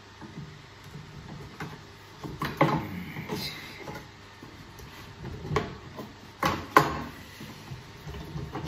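Screwdriver prying a thin wooden support fillet off a snooker table cushion block: irregular sharp wooden knocks and clicks with creaking between them, the loudest a little over two-thirds of the way through.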